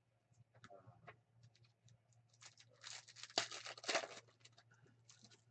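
A clear plastic trading-card pack wrapper crinkling and tearing as it is opened by hand, loudest in a few sharp crackling bursts about three to four seconds in, with light clicks of cards being handled around it.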